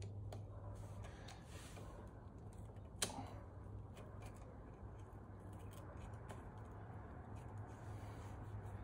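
Faint small metal clicks and taps as the clutch pressure-plate bolts of a Yamaha YZ250 two-stroke are threaded in by hand, with one sharper click about three seconds in, over a low steady hum.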